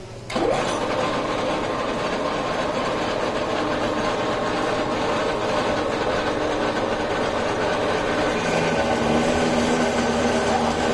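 Small metal lathe running steadily, machining a forged hook blank held in its chuck, a constant mechanical hum with steady tones. It starts abruptly just after the beginning.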